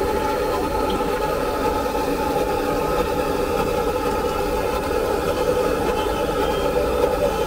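A steady mechanical drone, even and unbroken, like an engine or motor running at idle.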